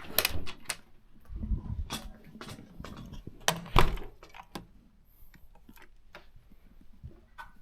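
A door being handled: a run of knocks and low thuds, the loudest about four seconds in, then only faint light taps.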